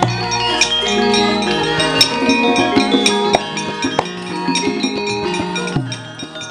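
Javanese gamelan playing: metallophones and gongs ring over sharp drum strokes, and the music grows quieter near the end.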